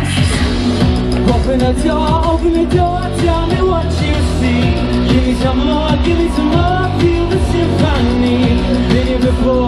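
Live rock band playing a song, a singer's voice over a steady drum beat and bass.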